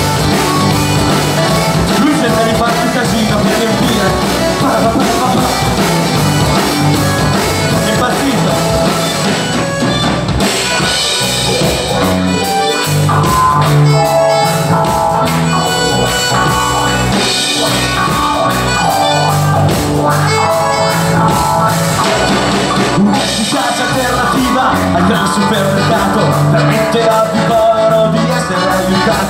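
Live rock band playing loudly: drum kit, electric guitars and accordion.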